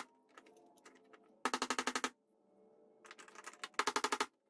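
Fast runs of light hammer taps on a screwdriver, driving the fuel pump module's lock ring clockwise on the fuel tank. There are two short bursts, about a second in and again near the end, with a few faint clicks between.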